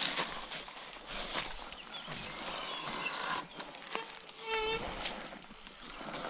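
Dry leaf litter and twigs crackling under wheels and feet on a woodland trail. A short, high pitched call comes about four and a half seconds in.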